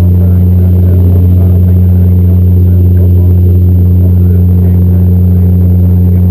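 Bombardier Dash 8 Q400's Pratt & Whitney PW150A turboprop and six-blade propeller heard from inside the cabin in flight: a loud, steady drone dominated by a deep propeller hum with a fainter tone an octave above.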